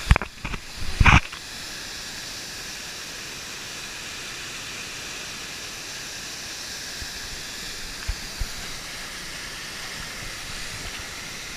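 Steady rushing hiss of a waterfall, with a few loud thumps in the first second or so.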